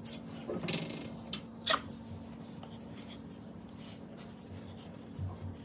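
Paintbrush dabbing and brushing paint onto a volcano model: a few light taps and scrapes in the first two seconds, then only a faint steady hum.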